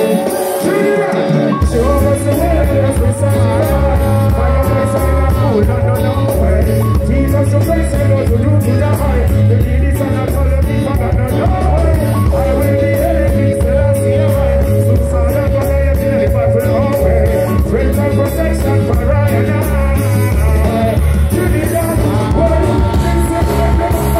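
Live reggae band playing loudly through a concert PA, heard from the crowd: a heavy bass line kicks in about a second and a half in, with long held keyboard-like notes over it.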